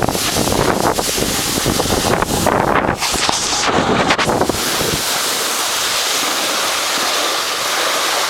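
Wind buffeting the microphone, an uneven gusty rumble; about five seconds in the rumble drops away, leaving a steady hiss.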